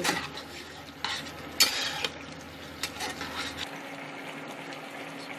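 Spatula stirring a soya chunk curry in a nonstick pan. A few scrapes and knocks come in the first three seconds, the loudest about one and a half seconds in, over the steady sizzle of the gravy coming to a simmer.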